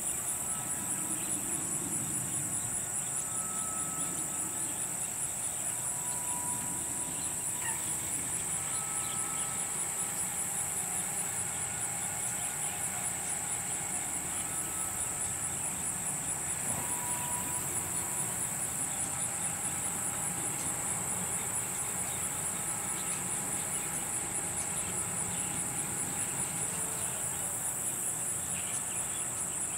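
Steady high-pitched insect chorus, a fast, even pulsing that does not let up, with occasional short faint whistles.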